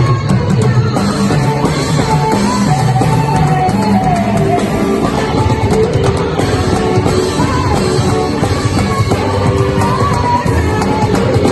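Loud music with singing over instruments.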